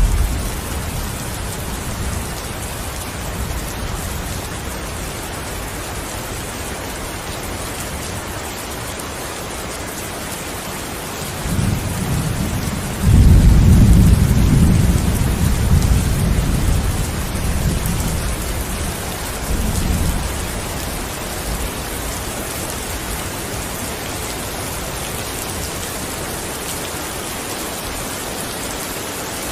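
Steady rain falling, with a long low thunder rumble that builds about eleven seconds in, is loudest a little later and dies away by about twenty seconds.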